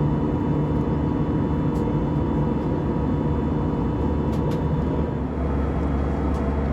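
Jet airliner cabin noise: a steady low rumble of engines and airflow with a constant hum running through it.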